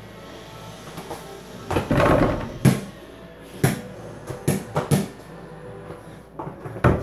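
Small basketball knocking against a mini hoop mounted on a door and bouncing on a hard floor: a string of sharp thuds, three close together in the middle, after a short scuffling noise.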